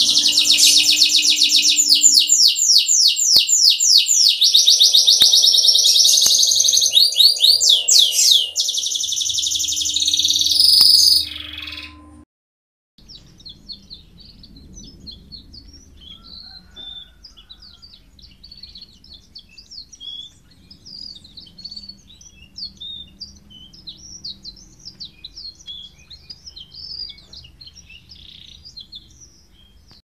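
Domestic canary singing loudly in fast rolling trills and rapid repeated note series. About twelve seconds in the song cuts off, and after a brief gap another canary sings much more faintly in short scattered chirps and trills.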